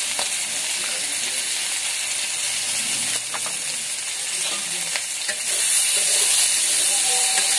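Taro stalks frying in oil in a metal kadai: a steady, high sizzle that grows louder about five and a half seconds in, with a spatula stirring the pan near the end.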